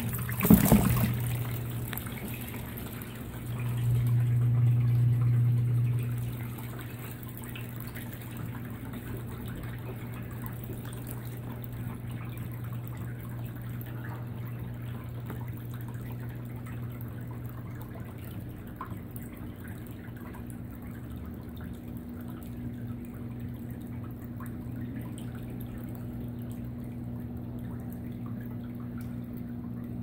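Brastemp Vantage 8.5 kg top-load washer draining: its drain pump hums steadily while the water it pumps out gushes from the drain hose into a half-full plastic basin. The gushing gets louder for about two seconds, about four seconds in, then settles to a steady run.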